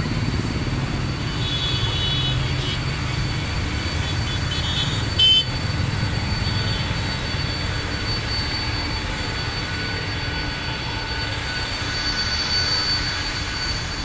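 Steady rumble of distant jet airliner engines with a thin high whine running through it. A single sharp knock about five seconds in.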